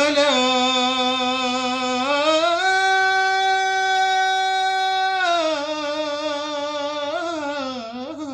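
A solo voice singing an Arabic song unaccompanied, drawing one syllable out into a long note. It holds low, rises about two seconds in to a higher note held steady for about three seconds, then winds back down with wavering ornaments.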